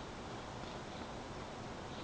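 Steady low background hiss of ambient noise, with no distinct sound standing out.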